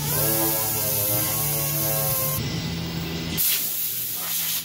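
Orbital sander running on a painted panel: a high hiss with a motor whine that rises briefly as it spins up and then holds steady for about two seconds. The sound changes after that and cuts off suddenly at the end.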